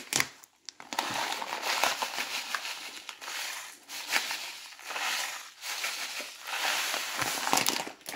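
Coarse sea salt being scooped and added by the handful for pickle brine: a gritty, crunching rustle in about seven strokes of roughly a second each, with small clicks.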